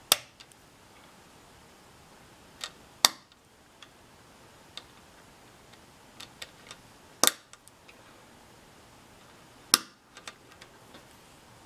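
Plastic K'nex chain links snapping together, the hooks of one link pressed into the grooves of the next: four sharp clicks a few seconds apart, with fainter ticks of the parts being handled between them.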